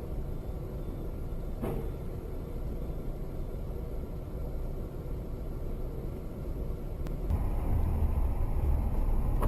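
Steady engine and road rumble of a moving car, heard from inside the cabin through a dashcam microphone. The rumble gets louder about seven seconds in.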